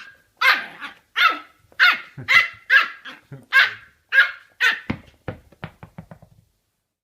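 A dog barking repeatedly, about nine loud barks at roughly half-second intervals. About five seconds in, they give way to a quicker run of short, sharp sounds that fades out.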